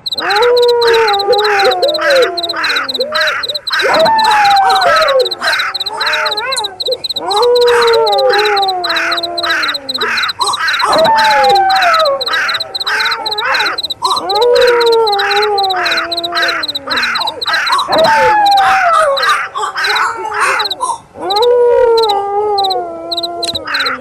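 Wolf howls, each a long call that falls in pitch over about three seconds, repeated roughly every three and a half seconds, over a steady high chirping of crickets.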